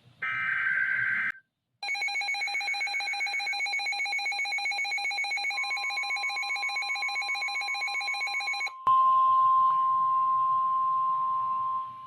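NOAA Weather Radio alert sequence. A burst of screechy digital SAME data tones comes first. Then a weather radio receiver sounds a rapid, evenly pulsing electronic alarm for about seven seconds. After that comes the steady, loud single-pitch Weather Radio warning alarm tone that announces a new warning.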